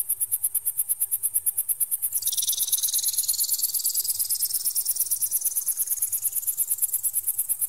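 Electronic bird-repeller sound meant to scare magpies: a rapid train of shrill, high-pitched pulses, about eight a second. A little over two seconds in, a tone joins it that drops sharply and then glides slowly upward in pitch.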